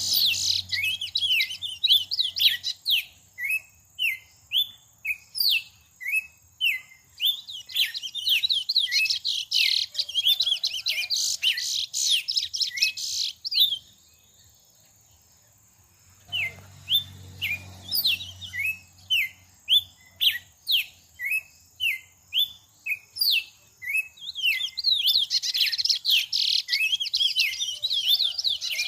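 Songbird calling a rapid series of short, sharp chirps, about two a second, with stretches of denser twittering. The calling stops for about two seconds midway, then resumes.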